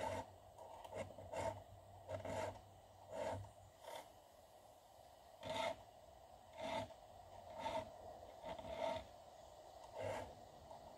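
Round chainsaw file (7/32 inch) stroking across the cutter teeth of a chainsaw chain, a rasping scrape about once a second with a short pause midway.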